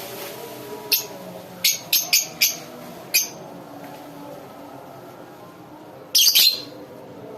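Lovebirds giving sharp, high-pitched chirps: a quick run of about six between one and three seconds in, then a louder, harsher squawk near the end.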